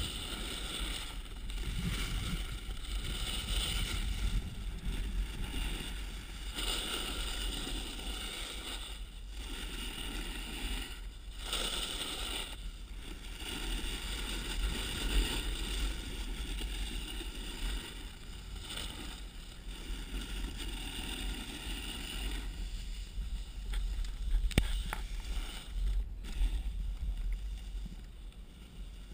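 Snowboard sliding and carving over packed snow, with wind buffeting a pole-mounted GoPro's microphone: a steady rushing noise over a low rumble that drops away briefly a few times.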